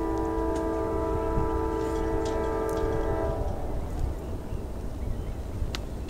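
Norfolk Southern AC44C6M locomotive's air horn, heard at a distance: a steady multi-note chord that cuts off about three and a half seconds in, over a low rumble.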